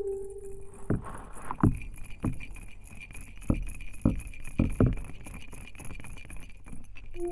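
Hydrophone recording under water: irregular sharp clicks and knocks, about eight in a few seconds, over a faint steady high tone and hiss. A held synthesizer tone dies away in the first half second.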